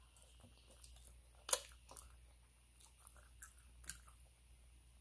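Faint close-up chewing of a mouthful of soup and food eaten by hand, with small wet mouth clicks. Two sharper clicks come about one and a half seconds in and again near four seconds.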